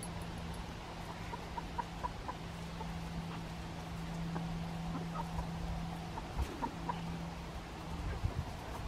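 Backyard chicken clucking in scattered runs of short, quiet notes, over a steady low hum.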